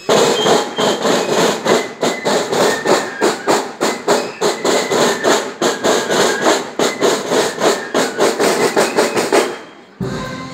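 Marching band's snare drums beating a steady march cadence, about three strokes a second, with the rattle of the snares; it fades out near the end.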